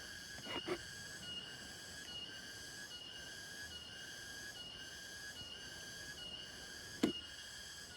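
Faint run of short, high whistled notes repeating about twice a second, a calling animal in the riverside background. A single sharp click about seven seconds in.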